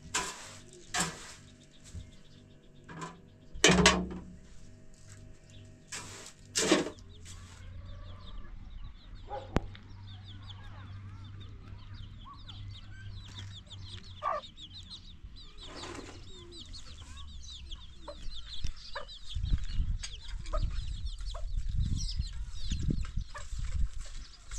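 Chickens clucking, with several sharp knocks in the first seven seconds, the loudest about four seconds in, and a low rumbling in the last few seconds.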